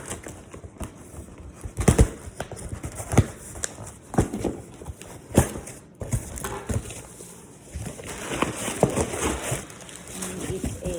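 A package being opened by hand: irregular knocks and taps of cardboard and packaging, with rustling and crinkling that builds up toward the end.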